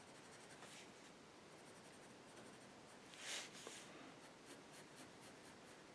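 Faint pencil strokes scratching on drawing paper, with one louder stroke a little over halfway through.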